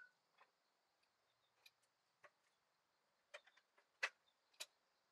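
Near silence with a few faint, scattered clicks and taps, the sharpest about four seconds in.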